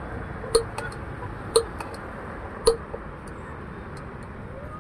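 A steel spoon clinking three times against the rim of a steel pot, about a second apart, each a sharp metallic tap with a short ring, then a few fainter ticks, over a steady low background hum.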